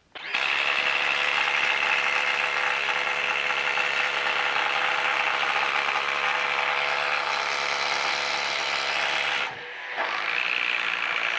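Hilti Nuron 22V cordless impact driver hammering steadily as it drives a spade bit through a wooden beam. It stops about nine and a half seconds in, then runs again for about two more seconds.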